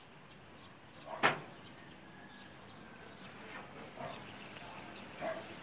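A dog barking a few times at intervals, with the sharpest, loudest sound about a second in, over faint background noise.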